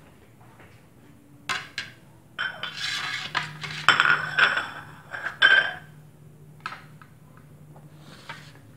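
Ceramic plates being set down on a tiled surface, knocking and clinking against it and each other in a run of sharp clinks with short ringing tones, loudest in the middle.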